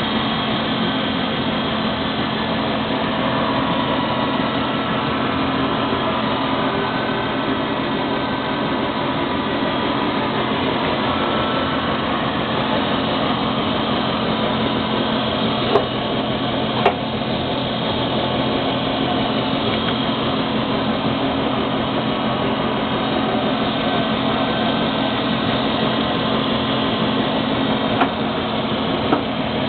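Special-purpose drilling machine with servo control running with a steady mechanical hum, with a few brief sharp clicks about halfway through and near the end.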